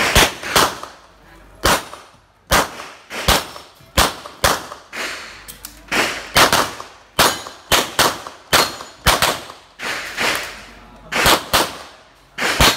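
A string of gunshots, about two dozen in all, fired mostly in quick pairs with short pauses between the pairs, each shot ringing out briefly.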